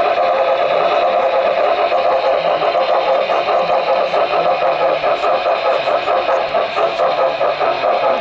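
HO-scale model train running steadily, its wheels rolling on the rails and its motor running, heard close up from on board the train.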